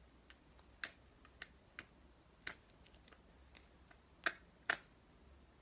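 Pencil tip prying and scratching at the paper-wrapped plastic ball of a LOL Confetti Pop toy, giving about six small sharp clicks at irregular intervals. The two loudest come near the end.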